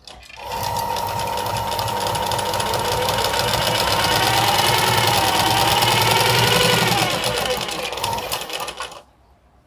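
Domestic straight-stitch sewing machine running at a fast, even rate as it stitches a seam through fabric; it slows and stops about a second before the end.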